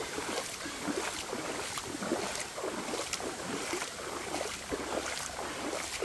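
Shallow river water babbling over rocks and sand: a steady rush of running water full of quick small gurgles and plops.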